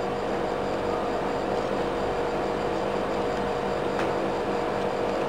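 Steady mechanical hum throughout, with a single faint metallic click about four seconds in as snap ring pliers work a large snap ring into an air-brake relay valve body.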